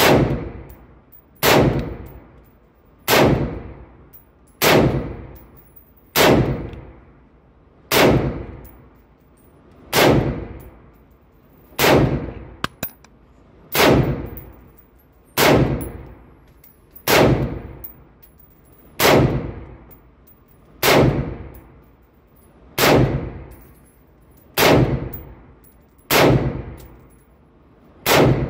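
A 5.56 semi-automatic rifle fired at a slow, steady pace, about one shot every two seconds, around seventeen shots in all. Each shot trails off in a ringing echo in the range booth.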